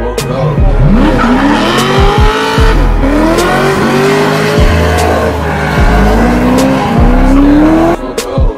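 Drift car sliding through a bend: its engine revs rise again and again while the tyres squeal, with a music track's bass beat underneath.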